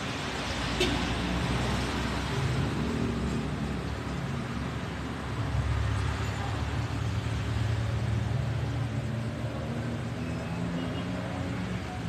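Low, steady engine-like rumble of a motor vehicle, growing louder about five seconds in, with a single sharp click about a second in.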